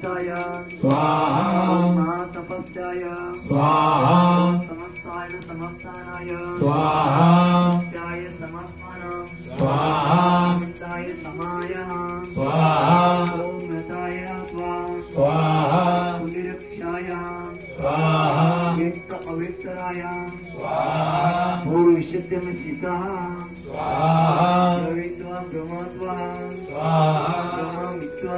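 Mantras chanted in a steady, repeating pattern, swelling every two to three seconds, with a small bell jingling alongside.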